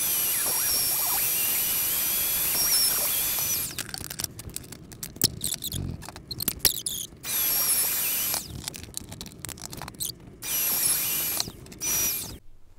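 Plunge router running in three short runs, each a high whine over a rushing noise, routing the depth of the inlay pockets through a template. The first run lasts about three and a half seconds, the other two about a second each, with clicks and knocks of handling in between.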